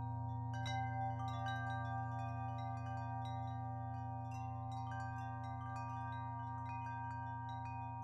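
Soft meditation background music of wind chimes tinkling irregularly, several light strikes a second each left ringing, over a steady low drone.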